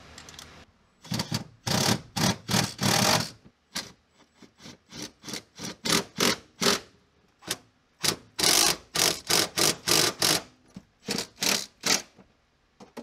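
A handheld cordless power tool run in many short bursts with brief pauses between them, driving in the mounting bolts of a bucket seat.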